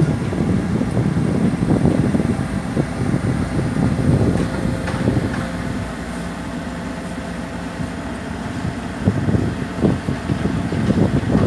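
Case CX210B excavator's diesel engine running as the machine works. It eases to a steadier, quieter hum for a few seconds past the middle and picks up again near the end, with a couple of sharp knocks.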